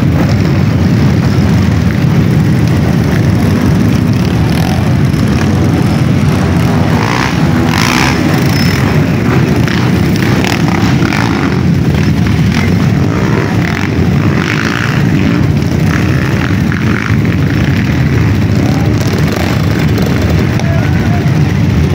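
A dense convoy of dirt bikes and quad ATVs riding slowly past, their many engines blending into one loud, steady drone.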